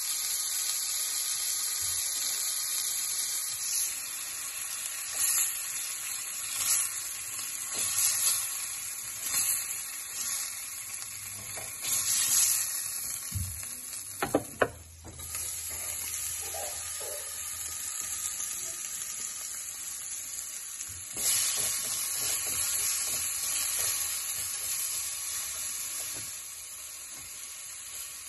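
Slices of pork belly sizzling as they fry in a clay casserole pan, stirred with chopsticks, with a few clicks about halfway through. The frying swells again later as sliced vegetables are stir-fried in the pan.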